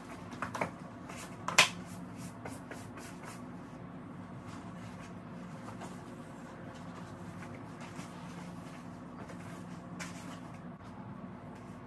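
A few sharp pats and knocks in the first two seconds, the loudest about a second and a half in, as a baby crawls on a foam play mat, then a steady low room hum with one more knock near the end.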